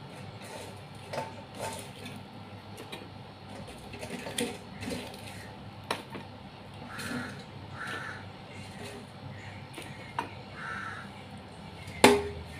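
Fried chicken pieces being set down and moved about in a glass dish: scattered light taps and knocks, with one sharp knock against the dish near the end. Three short, harsh calls sound in the background midway through.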